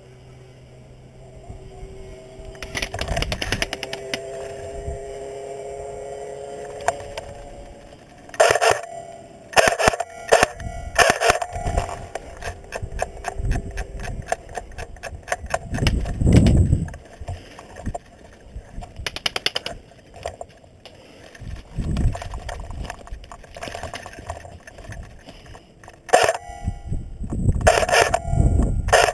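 Airsoft replica guns firing in bursts: fast, even rattles of full-auto shots in several runs separated by pauses, the longest about a third of the way in. A few dull low thumps fall between the bursts.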